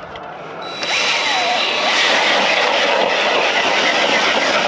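Power ice auger boring a hole through clear lake ice, a steady grinding that starts suddenly about a second in.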